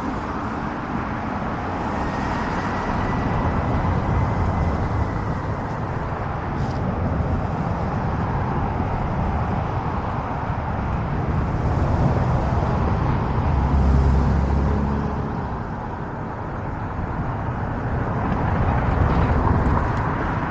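Outdoor road traffic: a steady hum of vehicles with a low rumble that swells as cars pass, loudest about 14 seconds in and again near 19 seconds.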